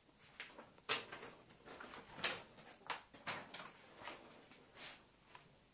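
A large folded paper game mat rustling and crackling as it is handled, unfolded and flipped over, in a string of short, crisp rustles.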